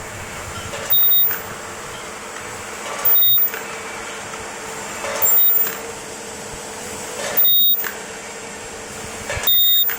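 Automatic ultrasonic welding assembly machine cycling: five short bursts about two seconds apart, each a high-pitched whine from the welding horn as it fuses the two halves of a trigger sprayer body, over the machine's steady running noise and a low hum.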